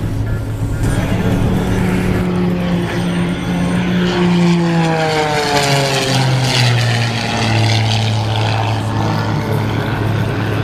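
Propeller race plane's engine droning loudly as it flies low past. About halfway through, its pitch slides down as it passes, then holds steady and lower.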